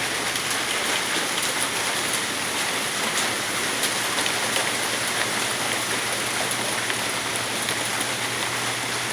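Thunderstorm downpour of rain and hail falling steadily, with scattered sharp ticks of stones and drops striking.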